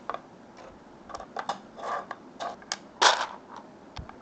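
Hard plastic marker blocks for 3D scanning clicking and knocking as they are set down one by one on a plastic turntable: about ten irregular clacks, the loudest about three seconds in.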